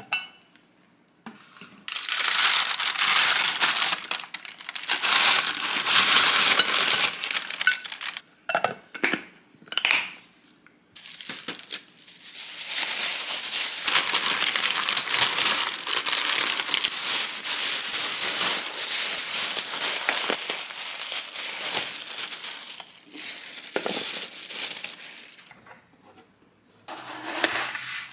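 Thin plastic bag and baking paper crinkling and rustling as small baked cakes are packed into the bag by hand, in long stretches broken by short pauses. A short, different noise comes near the end.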